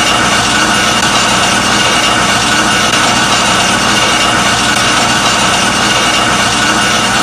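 Motorized toy-train log loader accessory running: a loud, steady mechanical buzz and grind from its motor and conveyor.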